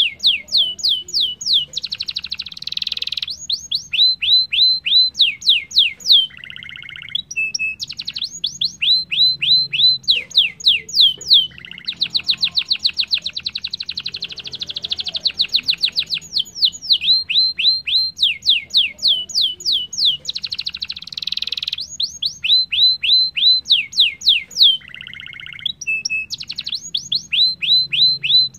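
Domestic canary singing a long, fast song: runs of rapid, repeated falling notes and dense rolling trills, broken twice by a short buzzy lower phrase.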